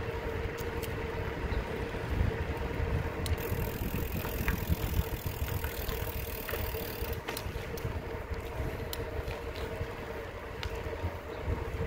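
Rolling noise of a slow ride along an asphalt road: a fluctuating low rumble with a steady hum above it and scattered light clicks and rattles.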